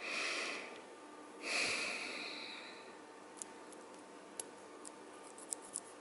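Two breaths blown out close to the microphone, about a second and a half apart, the second longer. Afterwards a few faint small clicks from handling the plastic keyboard-switch parts.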